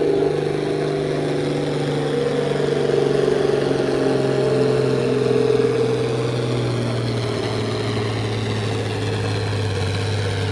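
John Deere farm tractor's diesel engine running hard under load as it pulls a weight-transfer sled, with a steady drone whose pitch slowly sags as the sled bears down.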